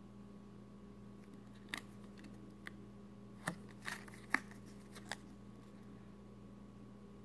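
Clear plastic sleeve around a silver bar crackling and clicking as it is handled and turned over in the fingers: about six short crinkles from about two to five seconds in, over a steady low hum.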